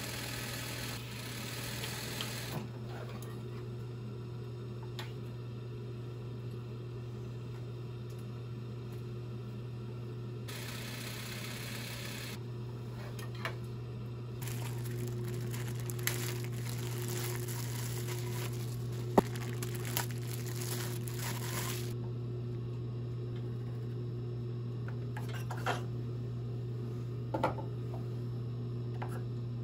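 Consew industrial lockstitch sewing machine in use: a steady low motor hum, with stretches of stitching and cotton fabric rustling as it is fed through, and a few sharp clicks in the second half.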